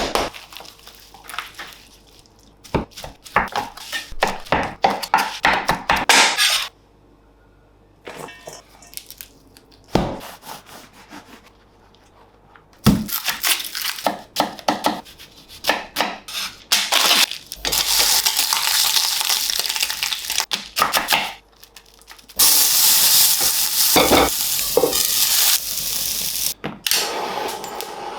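Food preparation sounds: runs of quick stirring and utensil strokes against bowls and pans, and two long stretches of steady sizzling in the second half.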